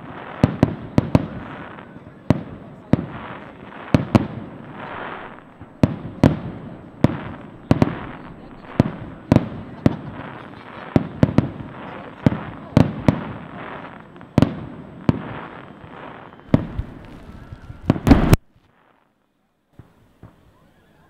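Aerial fireworks display: shells bursting in loud bangs, about two or three a second, with crackling between them. Near the end a rapid dense run of bangs cuts off suddenly.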